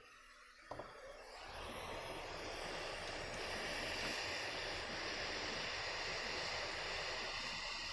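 Hot air rework station blowing at maximum airflow, set to 430 °C: a steady rushing hiss that comes in with a click about a second in and builds to full strength over the next second.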